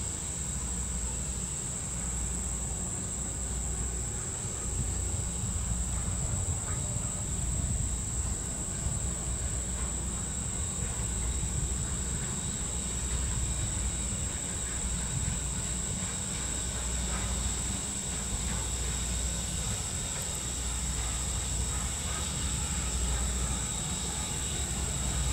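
Norfolk & Western 4-8-0 steam locomotive No. 475 working slowly nearby, heard as a low rumble that swells and fades every few seconds. Under it runs a steady high-pitched insect drone.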